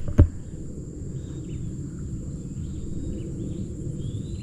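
Steady high-pitched drone of insects with a few short bird chirps over it and a low steady rumble underneath. A single thump comes just after the start.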